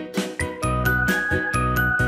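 Background music: chiming, bell-like notes held over a steady beat and bass line.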